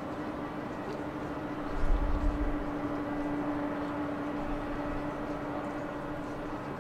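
Boeing 747 Dreamlifter's jet engines running at taxi power, a steady distant roar with a steady hum in it. A brief low rumble comes about two seconds in.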